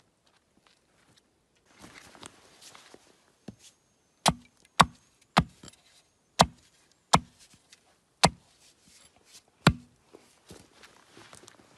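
Fiskars X10 axe chopping a stick held on a wooden stump: seven sharp strikes into the wood, unevenly spaced between about half a second and a second and a half apart. There is softer rustling before the first strike.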